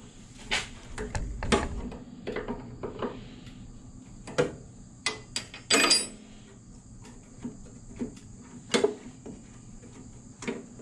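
Wrench and hands working a metal fuel-line fitting on an old compressor engine's carburetor, loosening it to disconnect the fuel line: a run of irregular metallic clicks, taps and knocks.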